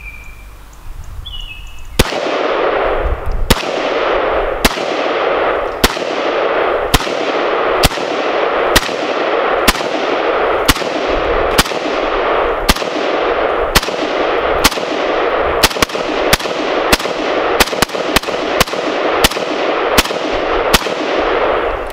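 Zastava AK-pattern rifle in 7.62×39mm firing a long string of semi-automatic shots, about two dozen, starting a couple of seconds in. The shots come about once a second at first and quicken to about two a second, each one ringing on into the next.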